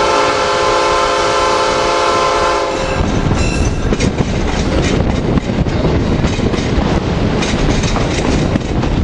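Diesel locomotive horn, the EMD GP9 at the head of the train, sounding one long steady blast for a grade crossing and cutting off about three seconds in. Then the passenger coach rolling along the track, with wheels clicking over rail joints.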